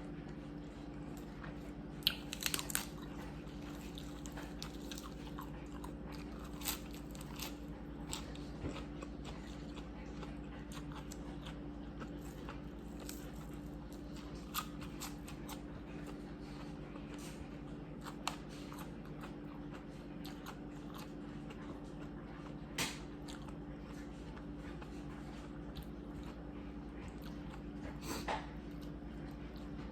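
A person eating mixed seafood: chewing and crunching, with scattered sharp clicks and cracks, over a steady low hum.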